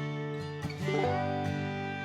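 Instrumental bluegrass-style music with acoustic guitar picking.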